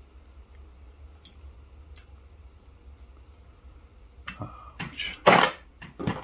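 Small metal screws and hand tools clinking and tapping against the model engine's parts while its mounting screws are started: a few light ticks, then a run of louder clinks in the last two seconds.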